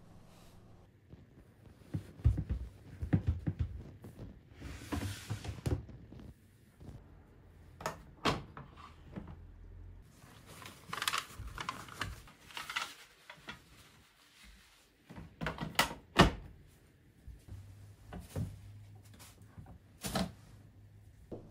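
A series of plastic clicks and thunks as the lint filter compartment on top of a drum washer-dryer is opened and closed and the filter handled, then the lid of a pedal bin knocks open under a foot on its pedal.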